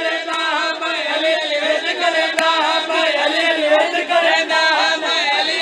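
A crowd of men chanting devotional praise together, many voices at once.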